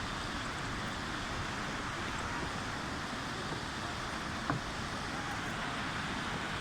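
Steady rushing roar of Muradiye waterfall's falling water, with one short knock about four and a half seconds in.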